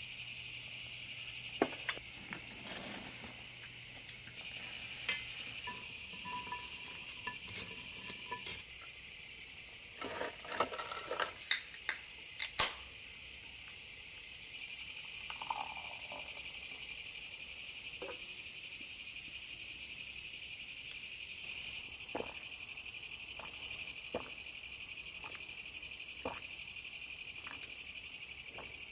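Crickets and other night insects chirring steadily in high, unbroken bands, with scattered clinks and taps of cans and glass against ice.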